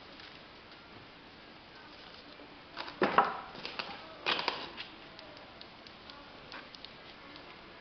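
Molten bronze poured from a crucible into plaster moulds, in the lost-wax process. Two short bursts of sharp crackling clicks come about three seconds and four and a half seconds in, over a low steady hiss.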